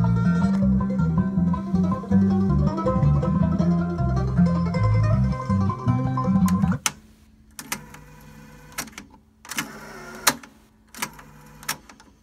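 Music playing back from a Sony TC-K15 cassette deck, cut off abruptly about seven seconds in when the stop key is pressed. Then come a series of sharp clunks from the deck's piano-key transport buttons, with short runs of the tape mechanism's motor between them.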